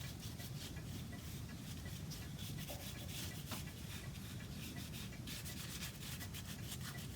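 Dark water stain being rubbed onto a wooden cuckoo clock case: quick, repeated rubbing strokes over the wood.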